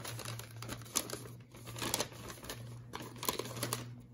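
Folded newspaper rustling and crinkling in the hands as it is pulled open and pressed flat, with irregular sharp crackles every second or so.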